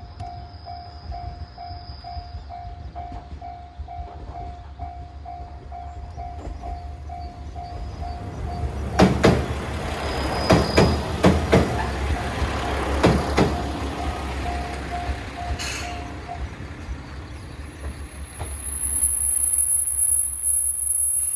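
Japanese railway crossing bell clanging in a steady even rhythm while a single-car train passes, its wheels knocking over the rail joints about halfway through; the bell stops about two-thirds of the way in. A thin high whine sounds near the end.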